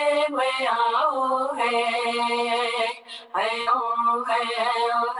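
A solo voice singing 'hey, oh' vocables in long held notes that slide between pitches, with a short breath break about three seconds in.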